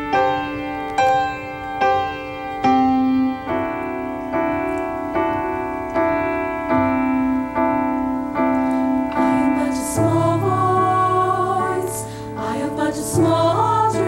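Grand piano playing a slow introduction of repeated chords, about one a second; about ten seconds in a mixed high school choir enters, singing with it.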